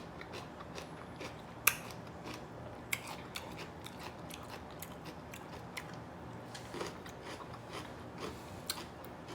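Biting and chewing raw celery: irregular crisp crunches, the sharpest a little under two seconds and about three seconds in.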